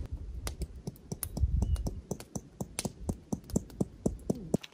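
Rapid, irregular sharp clicks and ticks, several a second, over a low rumble.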